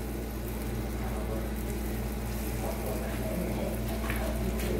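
Dough balls frying in a small pot of hot oil, a steady sizzle, over a low steady hum.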